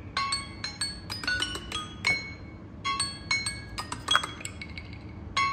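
Timer alarm tones ringing from two Samsung Galaxy phones (A02 and Note 20) after their countdowns have run out: a repeating phrase of short, bright bell-like chime notes, pausing briefly between phrases.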